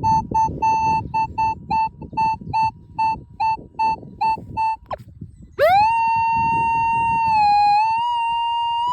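Metal detector target tone: a steady-pitched beep pulsing about three times a second, over low rustling and handling noise. After a short break about five seconds in, it swoops up into one continuous tone, the sign that the detector is right over the buried metal target.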